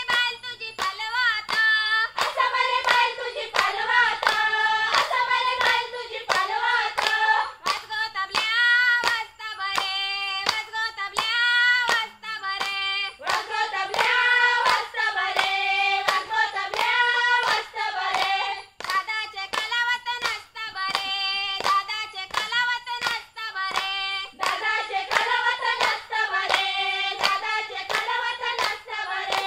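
Group of women singing a Konkani folk song together, with hand claps keeping a steady, even beat throughout.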